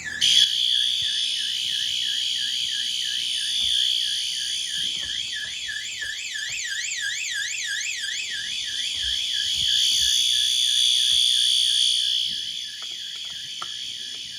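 Fire alarm test: a System Sensor SpectrAlert Advance horn sounds a continuous steady tone while a Qwork knockoff alarm siren warbles up and down a few times a second. Both start just after the pull station is pulled.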